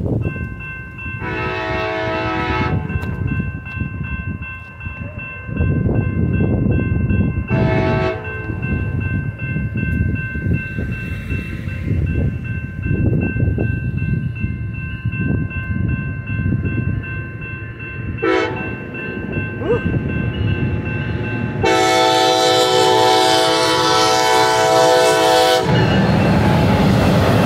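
Railroad crossing bell ringing steadily as a passenger train approaches. The Siemens Charger locomotive sounds its horn four times: a long blast about a second in, short ones around 8 and 18 seconds, and a long, loud blast near the end. The train then rushes through the crossing.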